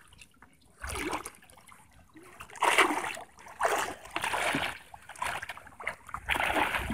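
Water splashing around a person's legs as he wades through shallow water, in irregular surges about once a second.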